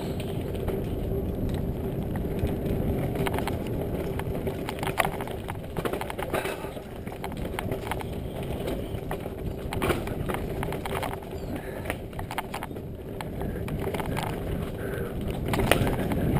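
Mountain bike rolling fast downhill on a dirt forest trail: steady tyre and ride noise with a constant hum, broken by frequent knocks and rattles as the bike hits roots and bumps.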